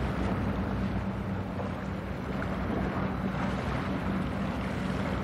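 Steady low drone of a general cargo ship's diesel engine carrying across the water, under an even rushing noise of wind and water.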